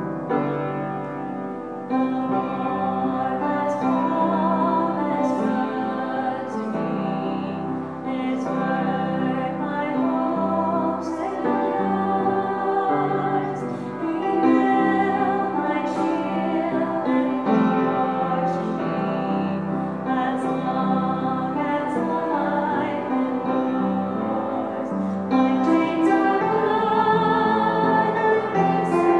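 Upright piano playing a slow piece, with a woman's voice singing over it in long, wavering held notes.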